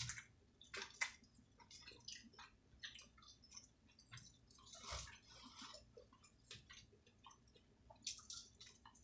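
Faint chewing and wet lip-smacking of people eating: a run of small, irregular wet clicks and smacks, with a longer soft smack or slurp about five seconds in.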